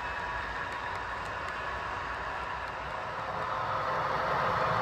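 HO-scale model coal train running: a steady rumble of hopper cars rolling along the track, growing louder about three and a half seconds in.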